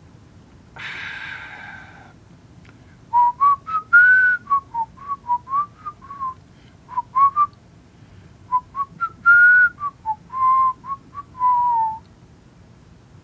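A man whistles a short tune in two phrases of brief notes that step up and down in pitch. It comes after a breathy exhale, like a satisfied 'ahh', about a second in.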